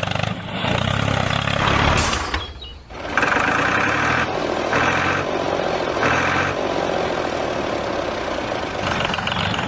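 An engine running, cutting out briefly about two and a half seconds in and coming back abruptly, with short repeated higher-pitched blasts over it.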